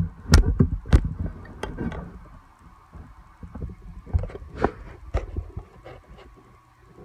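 Handling noise from a phone camera being picked up and repositioned: irregular knocks, clicks and rubbing, loudest in the first two seconds and then fainter.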